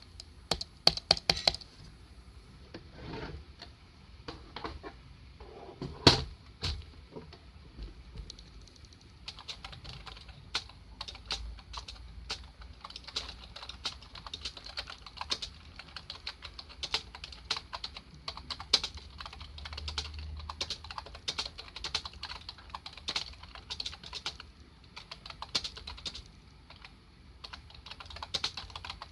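Typing on a Dell computer keyboard: a quick run of key clicks at the start and a single loud clack about six seconds in, then steady continuous typing from about nine seconds on.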